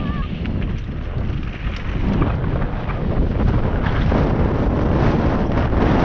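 Wind buffeting the GoPro's microphone as a mountain bike rolls fast downhill, over a steady rumble of tyres on a rough dirt trail with many small rattles and knocks from the bike.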